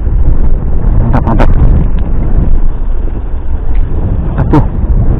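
Wind buffeting the microphone: a loud, steady low rumble, with a few brief sharp sounds about a second in.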